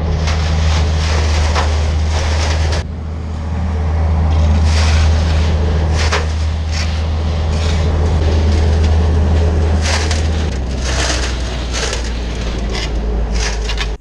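Hay blower running, a steady low drone under a loud rushing as raked hay is drawn into its intake, swelling in surges each time a clump goes in.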